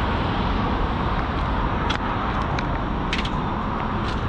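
Steady outdoor background rumble and hiss, with a few light clicks about two, three and four seconds in.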